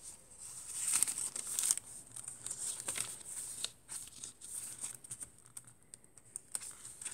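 Paper rustling and crinkling as the pages and paper-bag pockets of a handmade junk journal are handled and turned, with scattered soft clicks and taps, the busiest rustle about a second in.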